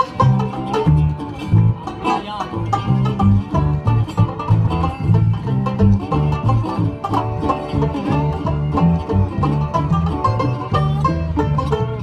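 Live bluegrass-style band playing an instrumental banjo solo: quick picked banjo notes over a stepping bass line.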